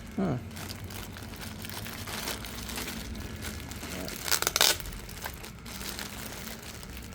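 Plastic packaging crinkling as it is handled and opened, with a louder burst of crinkling about four and a half seconds in.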